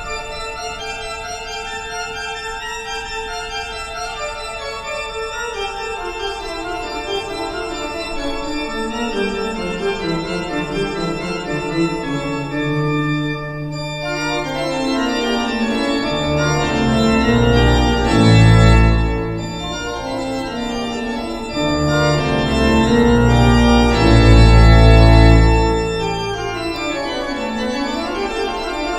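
Pipe organ playing sustained chords. A line steps down through the middle register, then deep bass notes come in and the sound swells loudest about two-thirds of the way through.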